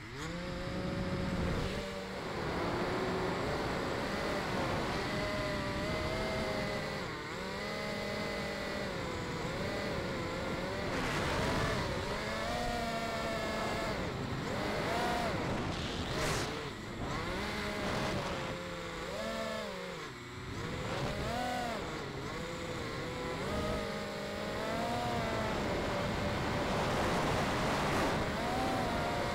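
Brushless motors and propellers of an FPV mini quad, heard close up through its onboard camera: they spool up suddenly as it lifts off, then whine steadily through the flight, the pitch rising and falling constantly with the throttle.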